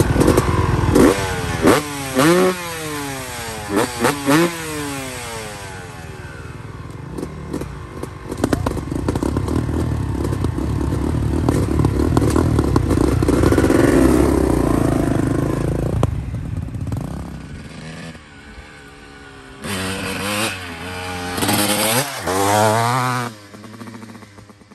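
1999 Yamaha YZ250 single-cylinder two-stroke with an FMF exhaust pipe: five sharp throttle blips in the first few seconds, then the engine held at revs for about ten seconds. The bike then pulls away and is heard accelerating hard twice, fading with distance near the end.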